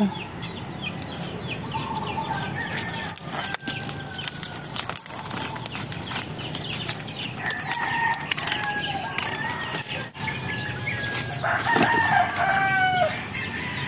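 Roosters crowing, long drawn-out calls with several overlapping near the end, with small birds chirping.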